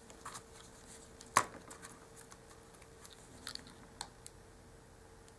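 Quiet handling of small paper pieces and a plastic glue bottle, with one sharp tap about a second and a half in and a couple of lighter clicks later on. A faint steady hum sits underneath.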